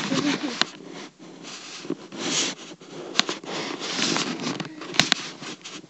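Handling noise: rustling and scraping as the camera is moved about among blankets, with two sharp clicks, one about three seconds in and one about five seconds in.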